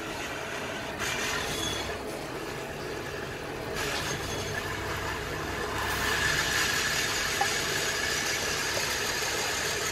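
Steady low rumble of an engine idling in the background, with a faint high steady tone joining about six seconds in.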